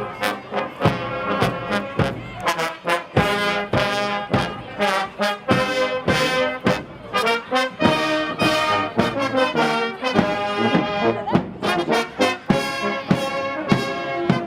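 Brass band playing, sustained brass chords over a steady drum beat.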